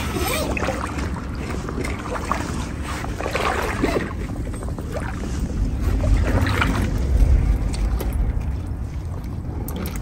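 Water sloshing and swishing in a few short bursts, over a low wind rumble on the microphone that swells about two-thirds of the way through.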